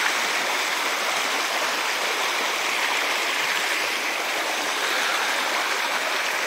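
Rocky creek rushing over stones: a steady, even rush of water.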